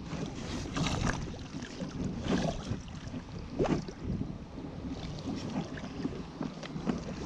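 Water splashing and sloshing as a rubber landing net is dipped and swept through the lake surface, in a few irregular splashes over a steady wash of water noise.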